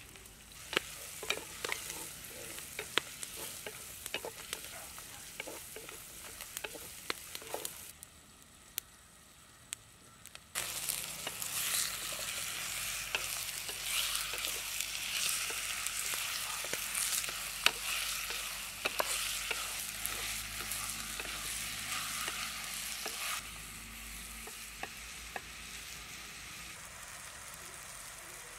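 Onions and spices frying in a clay pot over a wood fire, with scattered clicks and knocks of stirring. About ten seconds in, a much louder, denser sizzle sets in as chicken pieces fry and are stirred with a wooden spatula; it eases off a few seconds before the end.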